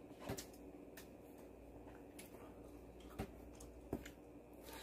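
A few faint, sharp clicks over low room hum: wooden chopsticks clicking against a plastic food container while picking up pieces of fried pork.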